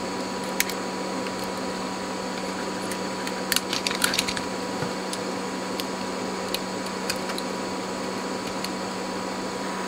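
Small plastic clicks and taps as a hook-style test clip and an oscilloscope probe are fitted onto the lugs of a potentiometer, a cluster of them near the middle, over a steady electrical hum and hiss of bench equipment.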